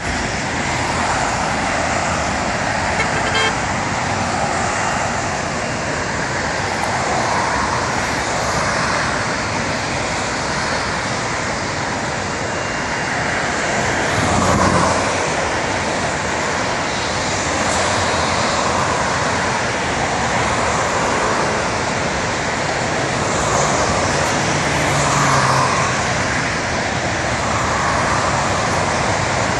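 Steady road traffic noise with cars passing close by, swelling about halfway through and again near the end.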